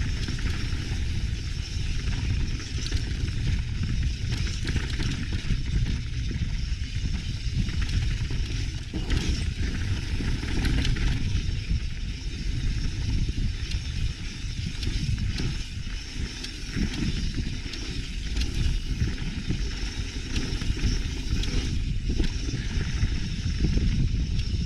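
Mountain bike rolling fast down a rocky dirt singletrack, heard from the bike: tyres crunching over dirt and stones, with frequent knocks and rattles over bumps and wind buffeting the microphone.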